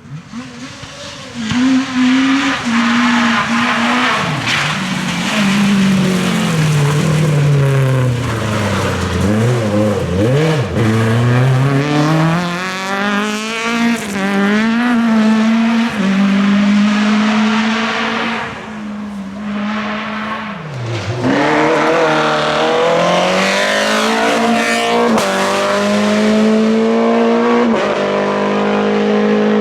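Naturally aspirated Group F2000 rally car engines at full attack. The pitch climbs hard through the gears, then drops under braking and lifts again, over and over.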